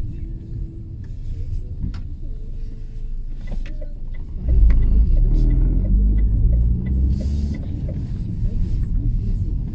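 Car being driven, heard from inside the cabin: a steady low engine and road rumble that steps up sharply louder about four and a half seconds in.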